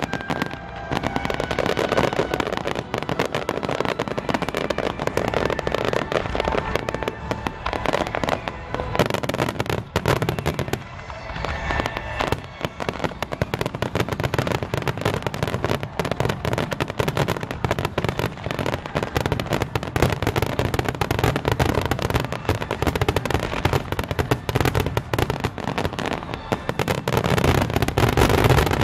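Aerial fireworks in a dense, continuous barrage: many shells bursting in rapid succession with heavy crackle, easing slightly about ten seconds in before building again.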